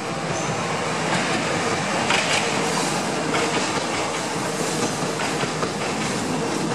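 Airport rail link electric multiple unit passing close alongside the platform: a steady rush of wheels on rail that grows louder in the first second, with scattered clicks as the wheels run over the rail joints.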